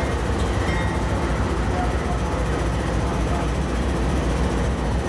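Norfolk Southern diesel locomotive passing close by with its engine running, followed by a passenger car rolling past on the rails: a steady low drone with train wheel noise.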